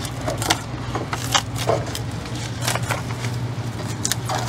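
Irregular sharp clicks and short scrapes of a metal scraper worked along fiberglass laminate in a taped wooden mold, over a steady low hum.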